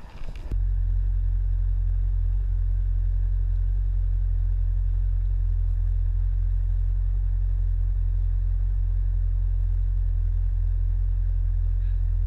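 Snowmobile engine idling, a steady, even low hum that starts abruptly about half a second in.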